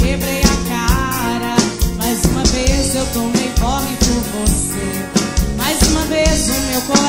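A live band playing loud, upbeat music at a soundcheck, with a drum kit keeping a steady beat under electric guitar and other pitched parts.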